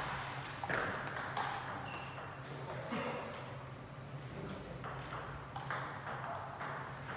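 Table tennis ball clicking sharply off the bats and the table during a rally, then scattered further ball clicks, over a low steady hum.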